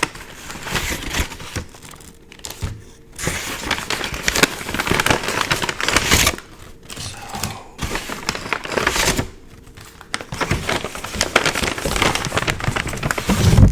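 Paper takeout packaging crinkling and rustling close to the microphone in several bursts with brief pauses, as the food is unwrapped.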